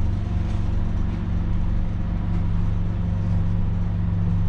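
Scania Fencer F1 bus's engine idling, a steady low hum heard inside the passenger saloon.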